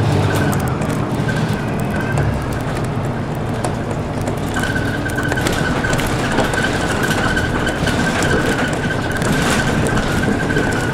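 City bus driving along a street, heard from inside the cabin: steady engine and road noise. A steady high whine joins about halfway through and holds.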